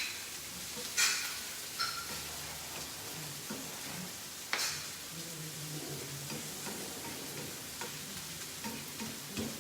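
Garlic sizzling in hot oil in a pan as it browns, with a utensil striking or scraping the pan sharply twice, about a second in and again midway.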